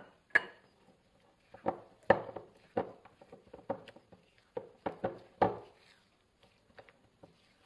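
Silicone spatula stirring a thick sour cream and butter mixture in a glass bowl, knocking against the glass in a string of sharp taps, about ten in the first six seconds, then only a few faint ones near the end.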